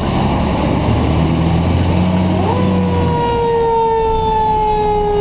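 Fire engine's siren heard from inside the cab over the truck's engine drone. About two and a half seconds in, the siren tone sweeps up, then holds and slowly slides down in pitch.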